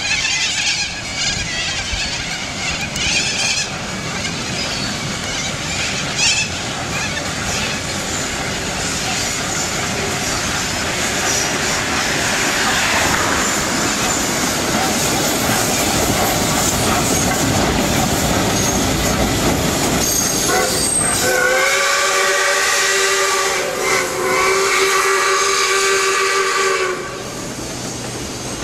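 Steam locomotive's whistle blowing two long blasts, each a chord of several tones, starting about three-quarters of the way through, over a steady rush of road and wind noise from a moving car.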